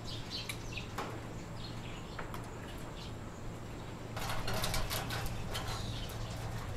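A steady low hum with a few faint, short chirps. About four seconds in comes a rougher stretch of rustling and clattering.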